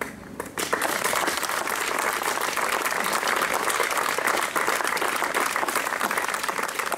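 A small crowd applauding, starting about half a second in and keeping up a steady patter of many hands clapping.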